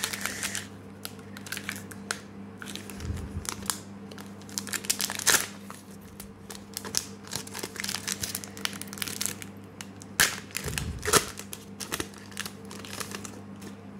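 Foil wrapper of a Pokémon booster pack crinkling and tearing as its top strip is ripped off and the cards are slid out, irregular sharp crackles throughout, loudest about five and eleven seconds in.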